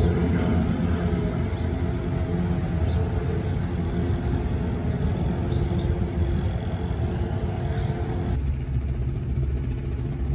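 Offshore racing powerboat engines droning across the water, a steady low rumble with several held pitches; the sound changes abruptly about eight seconds in.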